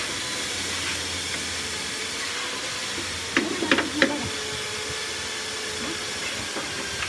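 Steady hiss throughout. A little past halfway comes a quick cluster of four or five sharp wooden knocks as the teak shutter is swung shut against its window frame to check its fit.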